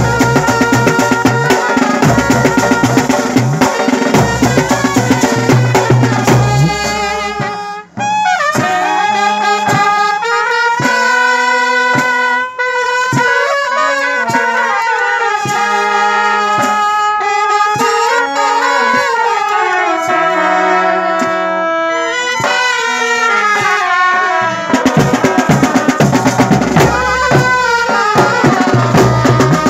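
Brass band of trumpets, saxophones and clarinets playing a tune with drums. About eight seconds in the drums stop and the horns carry the melody on their own, and the drums come back in about five seconds before the end.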